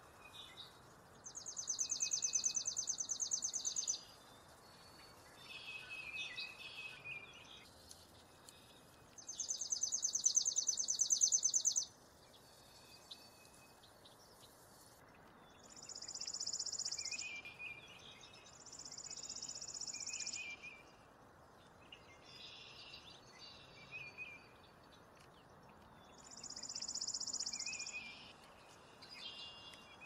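Chipping sparrow singing its song, a rapid, dry trill of identical chips on one high pitch lasting two to three seconds. It sings five times: the first two trills are loud and the later three softer, with scattered chirps of other birds between them.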